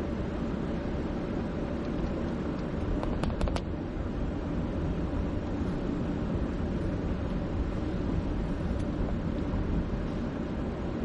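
Steady road and engine noise of a car driving, heard from inside the cabin. About three seconds in there is a quick run of four sharp clicks.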